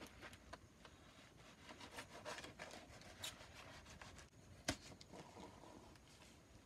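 Faint scraping and rasping of a knife blade drawn along the top of a cardboard box, cutting it open, with one sharp click a little past halfway.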